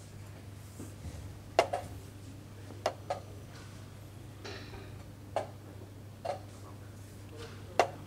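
Wooden chess pieces being set down and chess clock buttons being pressed: seven sharp wooden clicks spread irregularly, two quick pairs and then three single knocks, the first and last loudest. A steady low hum runs underneath.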